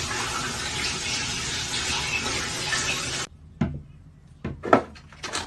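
Water running steadily from a tap, cutting off abruptly about three seconds in; a few sharp knocks follow.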